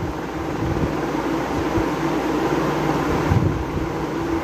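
A steady mechanical whir with a low, even hum.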